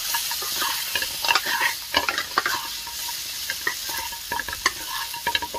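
Chicken pieces sizzling in hot oil in a nonstick wok while a wooden spatula stirs and turns them. The steady hiss is broken by frequent short scrapes and knocks of the spatula against the pan.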